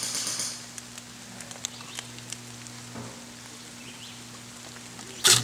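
Light rain pattering on leaves in woodland: a soft steady hiss with scattered faint ticks. A sudden loud burst comes in at the very end.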